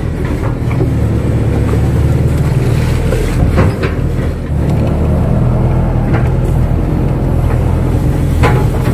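Kato crawler excavator's diesel engine running steadily while digging, with a few short knocks from the machine at work.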